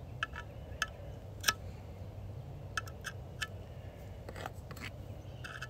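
Scattered light metallic clicks and ticks, about eight in all, from a metal pick working in the sprocket and clutch area of an Echo 7310 chainsaw, prying out wood chips gummed up in there.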